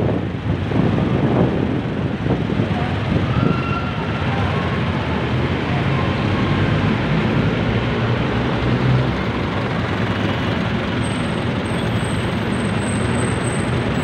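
Busy city street traffic: a steady mix of engine and road noise from passing jeepneys, motorcycles and motorcycle tricycles, with a low engine hum as a jeepney passes close around the middle.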